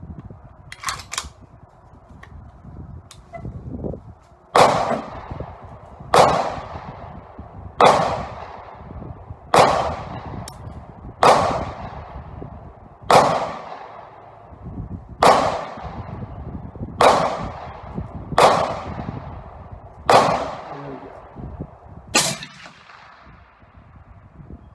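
A string of eleven gunshots at an even pace, about one every two seconds, each sharp crack followed by a fading echo. A couple of light clicks come about a second in, before the shooting starts.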